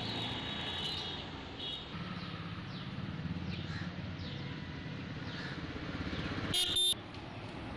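Outdoor background noise with a low hum and birds chirping in short falling calls. A brief, loud, shrill high-pitched tone sounds near the end.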